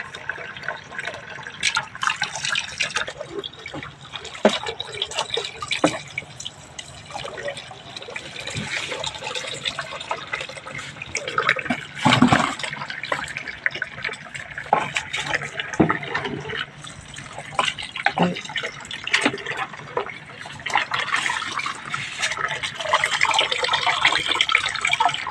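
Water splashing and dripping as freshly caught squid are handled in a tub of water and dropped into a plastic bucket, with a loud splash about halfway through. Near the end, a steadier run of water pouring off a mesh basket into a tub.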